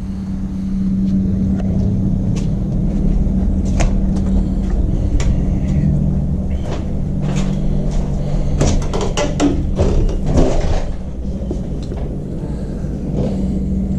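Steady low rumble and hum, with a cluster of clicks and knocks a little past halfway as a glass entrance door is opened and passed through.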